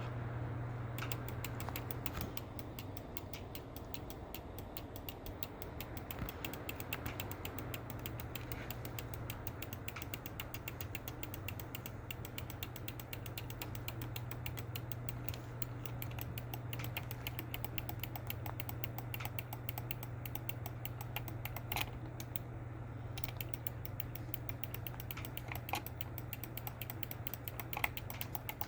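Computer mouse button clicked rapidly and continuously, many clicks a second, over a steady low hum.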